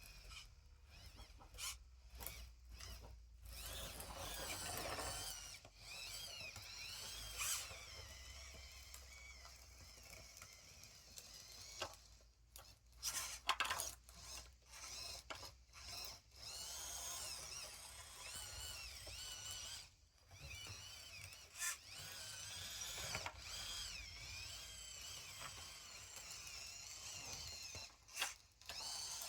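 Small electric motors and gearboxes of a radio-controlled model construction machine whining, their pitch rising and falling as they speed up and slow down, with short stops and a few clicks in between.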